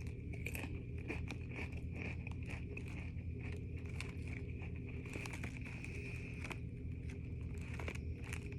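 Someone chewing crunchy spicy chips with irregular crackly crunches, over a steady background hum.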